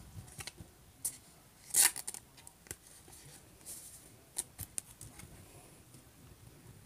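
Glossy foil trading cards being handled by hand: a few short, dry scrapes and clicks of card stock, the longest one about two seconds in.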